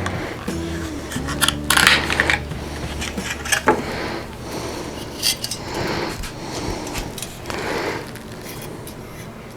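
Clinks, clicks and scrapes of small metal hardware being handled as a CPU air cooler is fitted to a motherboard, with a few sharp clicks in the first two seconds.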